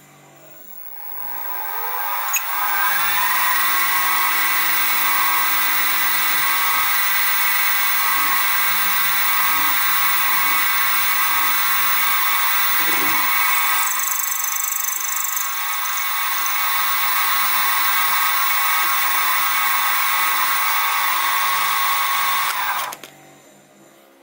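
Sieg SX2P mini mill spindle motor spinning up with a rising whine, then running steadily while a 3 mm end mill cuts a notch into a small gland nut. It stops abruptly about a second and a half before the end.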